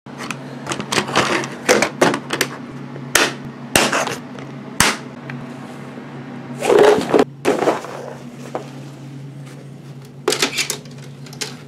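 Handling of a small clear plastic waterproof box: three sharp snapping clicks about three to five seconds in as its latches close, among shorter taps, then rustling of a canvas drawstring bag as the box goes in. A steady low hum runs underneath.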